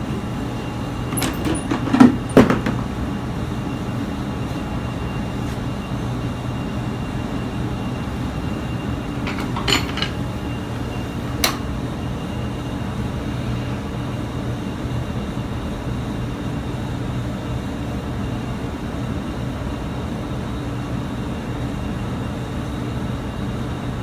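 Steady low machine hum with a few sharp knocks: a loud pair about two seconds in, then single ones about ten and eleven and a half seconds in.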